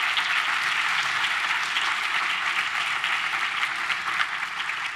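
Audience applauding: many hands clapping together in a dense, steady patter that eases off slightly near the end.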